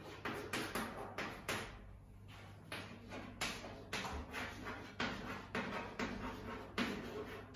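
Writing being done by hand: a quick series of short, irregular strokes, roughly two or three a second.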